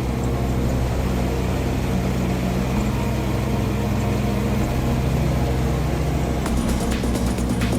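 Engine of a peanut harvesting machine running steadily under load, a continuous low hum with mechanical noise.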